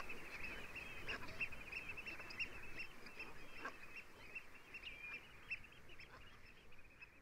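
A large flock of coastal birds calling, a dense babble of short overlapping calls, fading out gradually.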